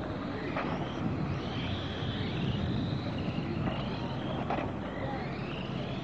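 Radio-controlled race cars' motors whining, the pitch rising again and again as cars accelerate past, with a few sharp knocks over a steady low rumble.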